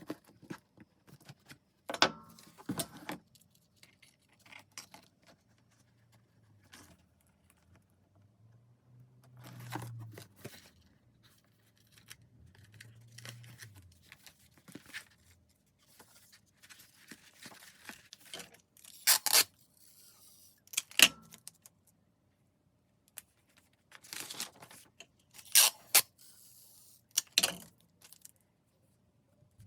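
Paper being torn and handled during junk-journal crafting: irregular rustles, tears and small taps, several sharper ones in the second half.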